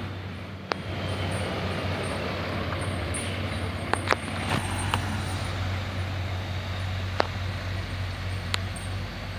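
Fire engine's diesel engine running as the truck drives past, a steady low drone with road noise and no siren. A few short sharp clicks, two close together about four seconds in.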